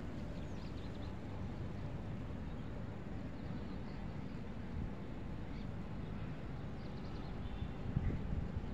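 Outdoor ambience: a steady low rumble with a few faint, high bird-like chirps.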